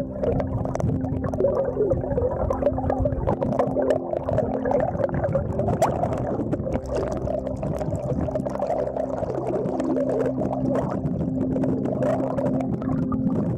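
Muffled underwater sound of a camera moving below the surface of shallow floodwater through submerged grass: churning, gurgling water with small ticks and bubbles, over a steady low hum.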